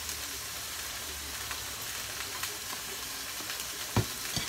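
Ground beef sizzling and crackling as it browns in a skillet, with two sharp knocks near the end.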